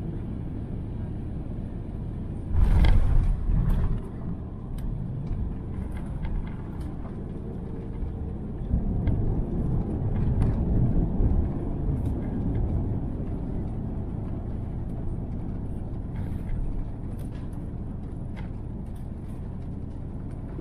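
Airbus A350-900 landing, heard inside the cabin: the main gear touches down with a sudden thump and a burst of rumble about two and a half seconds in. The rumble swells again for a few seconds around the middle as the jet slows on the runway, then settles into a steady cabin rumble.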